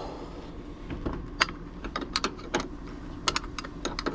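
Irregular sharp metallic clicks and clinks of a hand wrench working a stubborn bolt.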